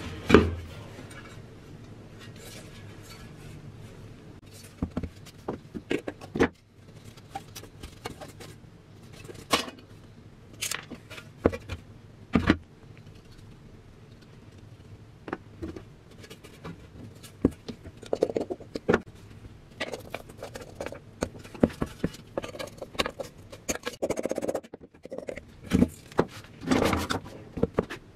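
Rusted steel helmet and its metal front badge being handled and taken apart: scattered metallic clinks, taps and scrapes, with one sharp knock just after the start.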